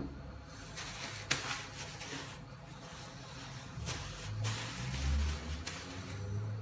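Thin plastic bag crinkling in bursts as it is handled and crumpled in the hands, with a sharp click at the start and another about a second later, and dull low thuds in the second half.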